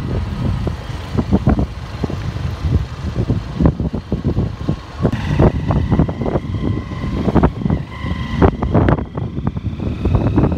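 A moving vehicle's engine and road noise as a low rumble, broken by repeated knocks and rattles. A thin, steady high tone sounds for a few seconds midway.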